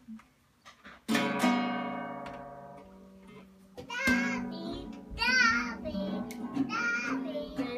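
Acoustic guitar: one chord strummed about a second in and left to ring out for about two seconds, then more strumming from about four seconds in, with high-pitched singing over it.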